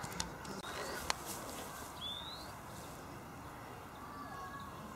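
A short rising bird chirp about two seconds in, over steady outdoor background noise, with two sharp clicks in the first second.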